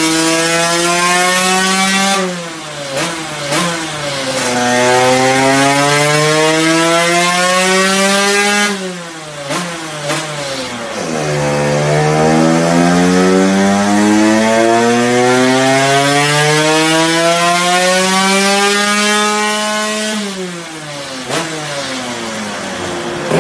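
Dirt bike engine revving on a stand with the rear wheel turning. Its pitch climbs slowly twice, for about five and then about eight seconds, and drops each time the throttle is shut.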